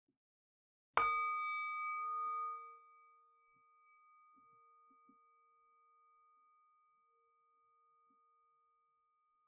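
Metal singing bowl struck once about a second in, ringing with several pitches at once. The ring drops away sharply after a couple of seconds, and a faint high tone lingers on.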